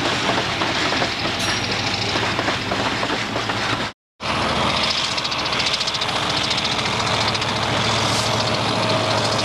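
A train running, with a steady low engine hum under continuous rattling and clatter. A brief dropout about four seconds in breaks the sound, and it then carries on as before.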